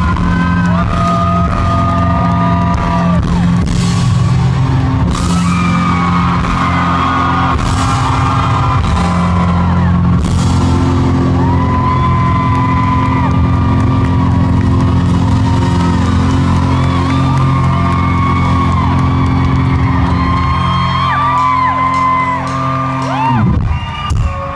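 Live rock band playing loudly, with a singing voice over steady low bass and shouts from the audience; the music stops abruptly near the end.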